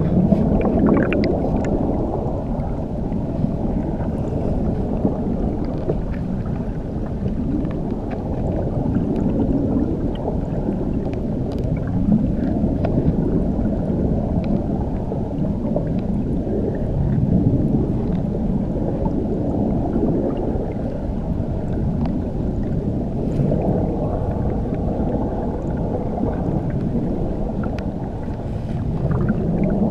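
Muffled underwater ambience: a steady low rumble of moving water heard below the surface, slowly swelling and easing, with a few faint scattered clicks.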